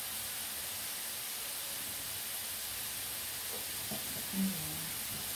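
Chips sizzling steadily in coconut oil in a frying pan, left to crisp up.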